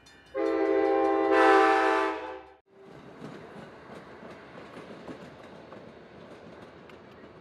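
A locomotive horn sounds one long blast of about two seconds, swelling slightly before it fades. It cuts off abruptly, and a passing commuter train's coaches take over: a steady rumble with faint clicks of wheels over the rails.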